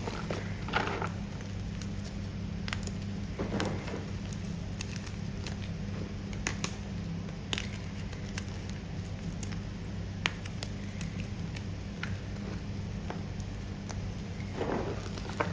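Chewing firm, crunchy pasted chalk close to the microphone: sharp cracks and crunches at irregular intervals, with a few longer grinding crunches, one near the end.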